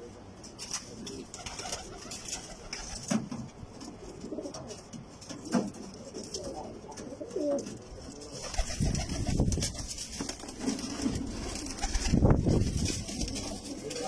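Red domestic pigeons cooing, low repeated calls with a few sharp clicks. From a little past halfway a louder low rumble comes in and is loudest near the end.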